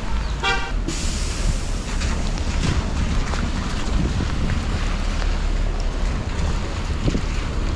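Steady wind rumble on an action camera's microphone over a wash of noise from a rain-soaked street.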